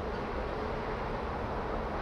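Steady background noise: a low rumble with hiss and no distinct events.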